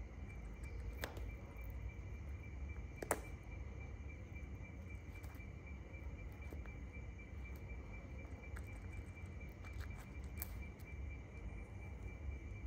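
Shikra hawk feeding on a pigeon carcass: sparse sharp clicks and snips of beak and talons tearing at flesh and feathers, the loudest about three seconds in. Underneath runs a steady low rumble and a continuous high trill.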